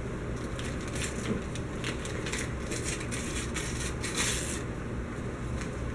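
Wrapping paper crinkling and tearing as a present is unwrapped: a run of quick crackly rustles, loudest about four seconds in, then dying away.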